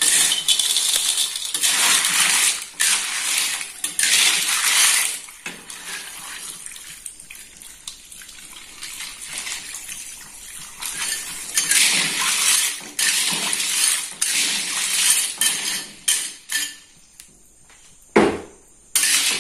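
Water being poured into a cooking pot of stir-fried snails and spices, with clinks of the pot and utensils. The pouring comes in two spells, the first in the opening five seconds and another later on.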